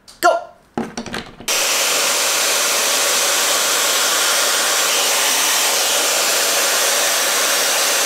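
Dyson Supersonic hair dryer with its diffuser attachment switched on about a second and a half in, then running steadily on high fan speed: a loud, even rush of air with a faint steady tone under it.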